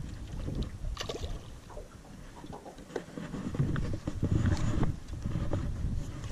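Low rumble of wind and water around an aluminium jon boat, with scattered clicks and knocks as a bass is fought to the boat on a spinning rod and reel.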